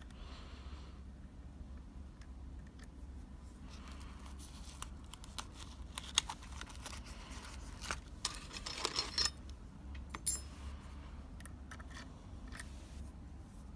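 Light clicks, scrapes and rattles of small metal lockpicking tools being handled and sorted, busiest about eight to nine seconds in.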